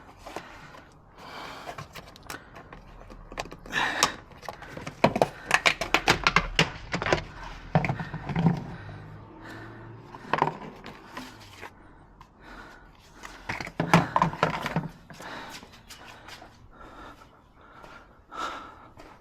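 Plastic interior trim clips being pried at with a tab puller tool, and trim pieces handled: a run of irregular clicks, knocks and rustling, thickest in bursts about a third and three quarters of the way in, with some heavy breathing.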